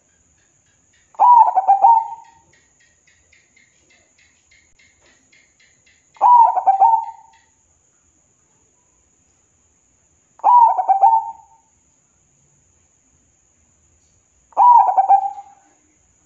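Zebra dove (perkutut) cooing: four phrases of quick, stuttering coos, each about a second long and about four seconds apart.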